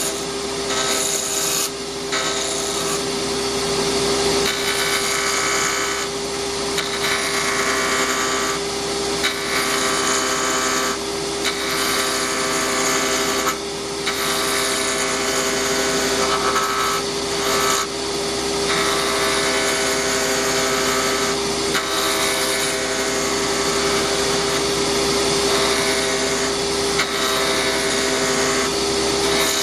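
Delta wood lathe running at a steady speed with a constant motor hum, while a pen blank spinning on it is worked, giving a rasping, scraping sound that comes and goes every second or two.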